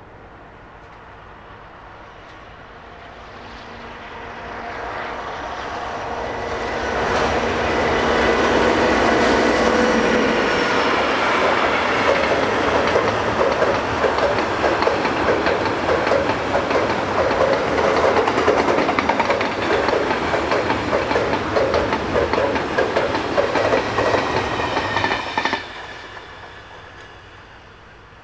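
A DB Class 232 ("Ludmilla") V16 diesel locomotive hauling a freight train passes close by. Its engine is heard building from about four seconds in and running loudest for a few seconds as it goes by. A long string of flat wagons follows, clattering over the rail joints in an uneven rattling rhythm, until the sound drops off suddenly as the last wagon passes near the end.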